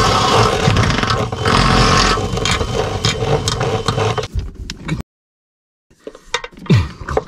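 Power drill cutting a hole up through the cargo trailer's floor, running steadily and then winding down about four seconds in. After a short break, clattering and scraping as the Ethernet cable is fed down through the new hole.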